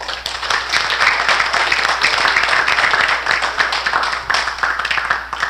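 Audience applauding with many hands clapping, starting quickly and thinning out near the end.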